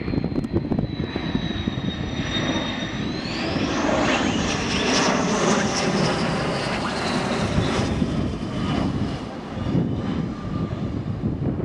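F-15 Eagle's twin Pratt & Whitney F100 turbofan engines passing low overhead on landing approach: a high turbine whine that climbs in pitch about three seconds in, then a loud jet roar swelling through the middle and easing off near the end.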